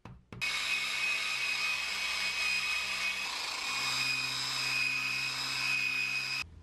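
Handheld power grinder spinning an abrasive disc against the steel edge of an axe head, a steady whine with a low hum. It starts about half a second in and cuts off suddenly just before the end.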